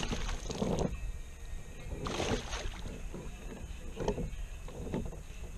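A hooked fish thrashing and splashing at the surface beside a kayak: one burst of splashing at the start and a second about two seconds in, with smaller splashes after, over a low rumble of wind on the microphone.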